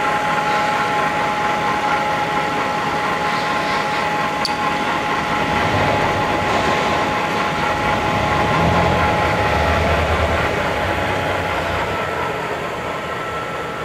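Wilton 2035 variable-speed geared-head floor drill press running with its spindle turning: a steady gear whine of several held tones over motor noise. A low rumble joins it past the middle, and the sound gets a little quieter near the end.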